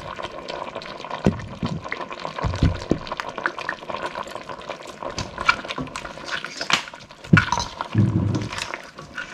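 Silicone spoon stirring and scooping crab and vegetables in coconut-milk broth in a stainless steel pot: sloshing liquid with scattered clicks and a few soft low knocks.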